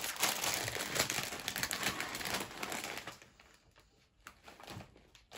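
Crinkling of a plastic-film crisp packet as it is pulled open, for about three seconds, then only a few faint rustles.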